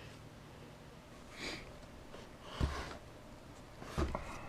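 A short sniff or breath about a second and a half in, then two soft thuds with a little rustle, from handling the kit box and manual.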